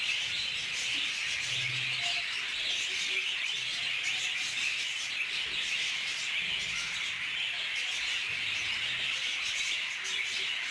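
Budgerigars chirping together in a steady, dense chatter, with no let-up.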